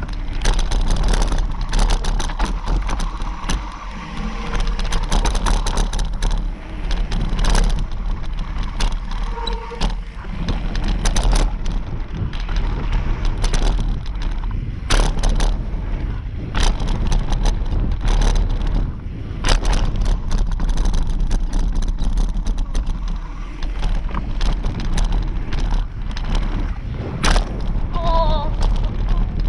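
Mountain bike riding fast down a dirt trail: wind buffets the microphone in a steady deep rumble over the hiss of the tyres on dirt, with frequent sharp clicks and knocks as the bike rattles over bumps. The clatter is heaviest about halfway through, as the bike crosses wooden planks.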